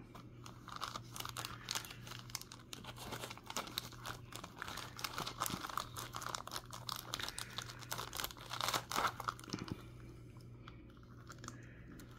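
Clear plastic wrapping around a diecast model airliner crinkling and rustling as it is handled and worked out of a foam insert, a dense run of irregular crackles that thins out near the end. A steady low hum sits underneath.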